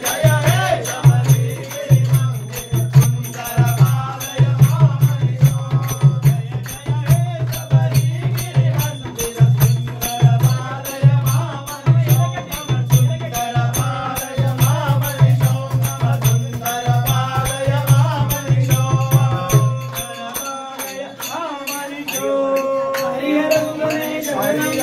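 Devotional song playing, with singing over a steady drum beat and a jingling rattle. The drum beat drops out about 20 seconds in, leaving held tones.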